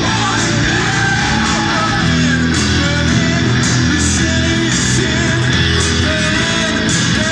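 Pop band playing live: electric guitar and synthesizer over a steady beat with a cymbal hit about twice a second, and a wavering melody line on top.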